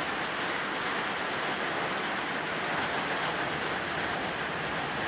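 Steady, even hiss of background noise with no distinct events, rain-like in character.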